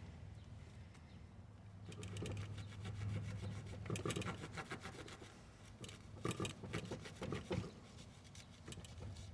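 Serrated kitchen knife sawing through a garden hose: a run of short rasping strokes starting about two seconds in.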